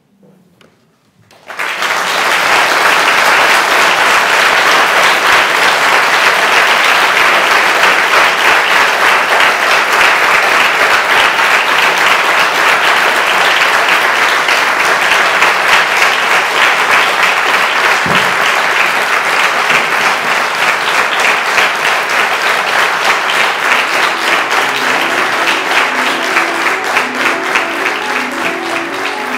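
Audience applauding, loud and sustained, starting about a second and a half in. Near the end, music with a stepping melody fades in under the applause.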